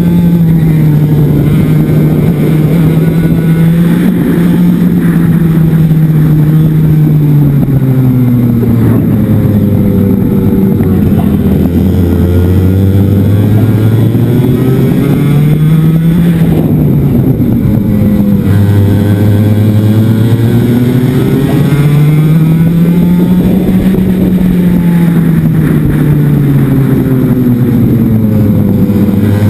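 Onboard sound of a two-stroke racing kart engine driven hard around a circuit, its pitch falling as the kart slows into corners and climbing again under acceleration, several times over.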